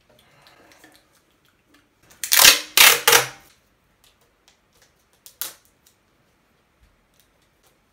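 Empty aluminium energy-drink can being crushed in the hand: three loud crackling crunches close together a little over two seconds in, then two short crinkles a few seconds later.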